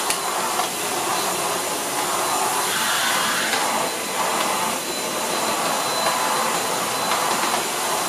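MOOSOO K17 cordless vacuum's brushless motor running steadily with its mini powered brush head, a whooshing airflow with a faint high whine, swelling and easing as the brush is worked back and forth over a shag rug.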